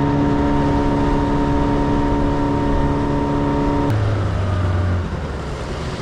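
Small outboard motor driving an inflatable dinghy, running at a steady note, then dropping to a lower, deeper note about four seconds in as the throttle comes back.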